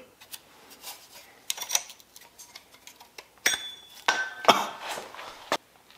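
Light metallic clicks and clinks from handling a removed heater core, its metal tubes and fins knocking as it is turned in the hands. A couple of brighter, briefly ringing clinks come past the middle.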